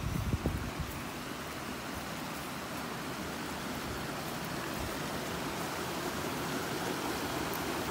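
Flowing river water: a steady rushing that grows slightly louder as the bank gets nearer.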